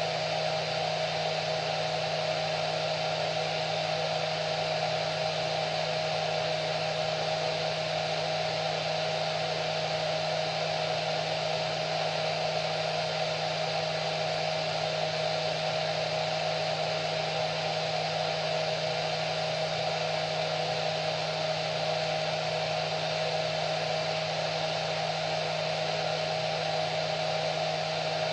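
Hair dryer running steadily, a constant blowing rush with a steady motor whine.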